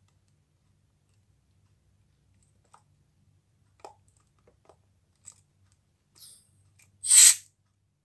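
A few faint ticks of the manifold gauge valve and hose fittings being handled, then a short, loud hiss of refrigerant gas rushing out of the charging hose about seven seconds in, lasting about half a second: refrigerant pushing the trapped air out of the hose before charging.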